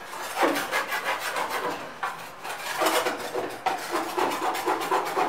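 Rhythmic gritty scraping, about four or five strokes a second, with a short lull about two seconds in.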